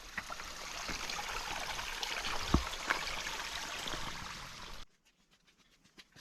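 Steady rushing hiss of water, with one dull thump about two and a half seconds in; it cuts off abruptly near the end.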